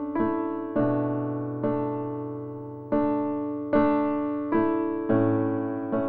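Background music: a slow, gentle piano piece. About eight notes or chords are struck one after another, each left to fade before the next.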